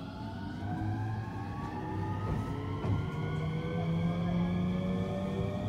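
Marine Liner electric train's traction motors whining, several tones rising together in pitch as the train pulls away and picks up speed, heard from inside the front car.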